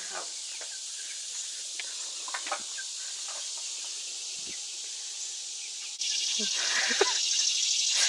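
Steady high-pitched insect chorus, the summer drone of crickets or cicadas, getting louder about six seconds in. A few faint short calls and taps sound through it.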